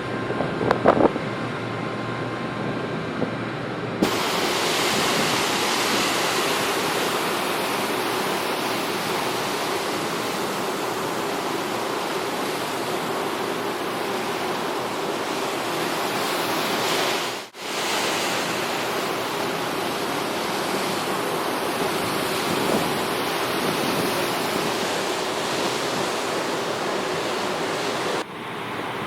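Sea water rushing and churning steadily along a ferry's hull and wake, with wind buffeting the microphone; it breaks off briefly about two-thirds of the way through.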